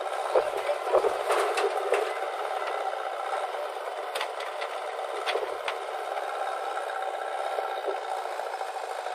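Diesel engines of a JCB 3DX backhoe loader and an Eicher tractor running steadily while the backhoe works. There is a run of clattering about half a second to two seconds in as the bucket unloads earth into the tractor's steel trolley, and a few sharp clanks of the bucket and arm around four to six seconds in.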